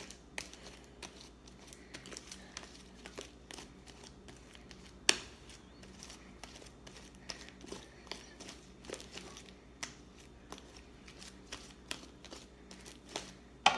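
Fluffy slime being stretched and kneaded by hand, giving faint scattered crackles and clicks, with one sharper snap about five seconds in.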